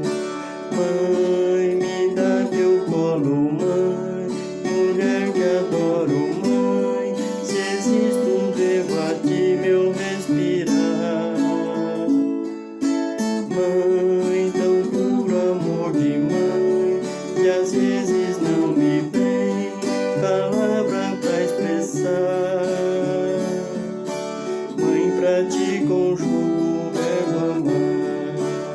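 Viola caipira, the ten-string Brazilian folk guitar, playing a plucked melody with sliding notes over a strummed accompaniment.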